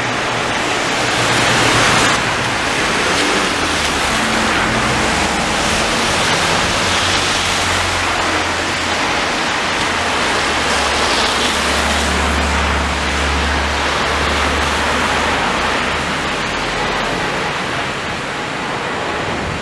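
Wuppertal Schwebebahn suspension railway car coming along its overhead steel rail and passing overhead, mixed with street traffic below. It is a steady rushing noise with low hums that shift in pitch.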